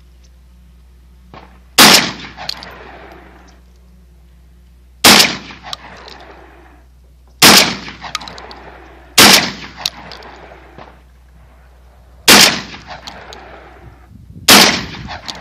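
Benelli M4 12-gauge semi-automatic shotgun fired six times at uneven intervals of one to three seconds. Each shot is followed by a fading echo with a few faint ticks.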